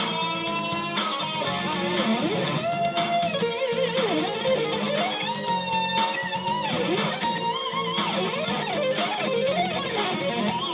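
Rock music with a lead electric guitar playing bending, sliding melodic lines over a steady backing.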